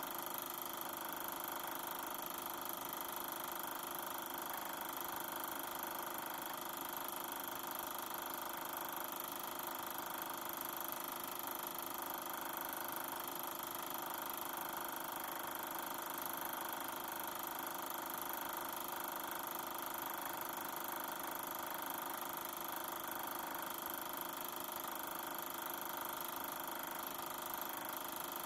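Super 8 film projector running steadily, a constant mechanical hum made of several steady tones, with the film's soundtrack not playing.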